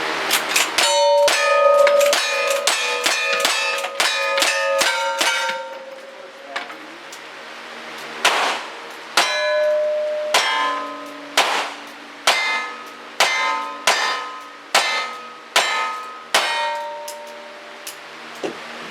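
Gunshots, each followed by the ring of a steel target being hit: a fast string of about ten shots, then a slower, evenly spaced string of about ten more.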